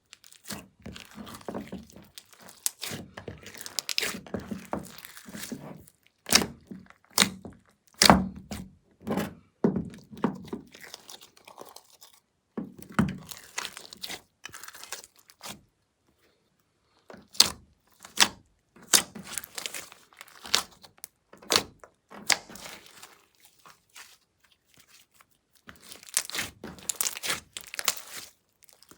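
Glossy slime being squeezed, folded and stretched by hand, making irregular sticky clicks, pops and soft thuds. The sound stops dead for about a second and a half just past the middle.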